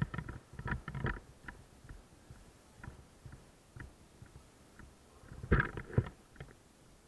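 Irregular clicks and knocks, bunched near the start and again about five and a half seconds in, with scattered faint ticks between.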